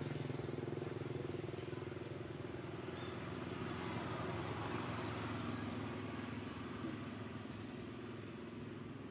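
A motor vehicle's engine running with a steady low hum that slowly fades.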